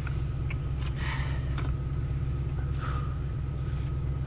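Faint wooden knocks and rustling as a firewood piece is repositioned on a chopping block, over a steady low rumble, between splitting-axe strikes.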